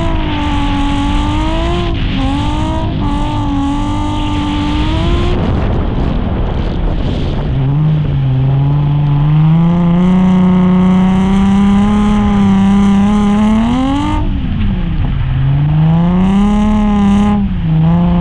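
Nissan 350Z's V6 engine revved hard, its pitch swinging up and down with the throttle. About five seconds in it breaks off into a rough, noisy rush for a couple of seconds, then climbs and holds high. It dips sharply near fourteen seconds and climbs again.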